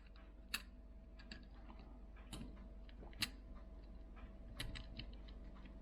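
Faint, scattered light clicks and taps of small tools and tiny parts being handled on a smartphone's opened frame during reassembly, about half a dozen sharp ticks spread over several seconds.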